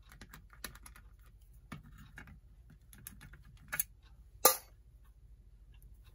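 Scattered light clicks and taps of a screwdriver and small screws being handled against a clock's metal plate during disassembly, with a sharper clack about four and a half seconds in.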